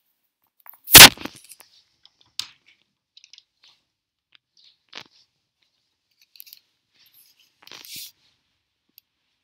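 Handling noise from a handheld camera: one loud knock about a second in, then scattered faint clicks and rustles as it is moved around against clothing.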